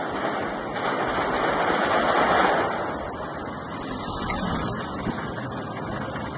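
Rushing outdoor street noise picked up by a phone microphone. It swells to its loudest about two seconds in, then falls back.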